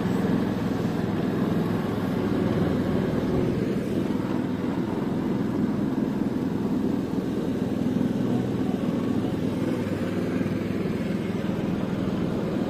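Small boat engine running steadily at an even speed as the narrow metal boat travels along the river.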